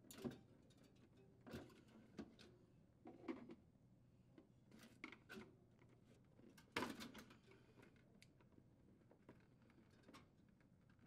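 Faint, scattered plastic clicks and rubs as a refrigerator's plastic evaporator fan motor housing is handled and its wire harness connectors are unplugged, the strongest about two-thirds of the way through.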